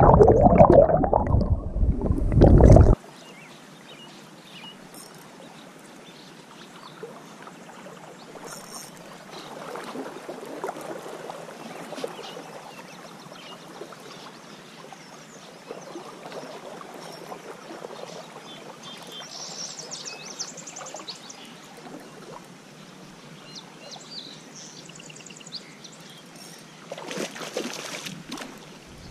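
Muffled rushing and sloshing of water around a camera held underwater, for the first few seconds. Then the steady, gentle wash of a river current flowing, briefly louder near the end.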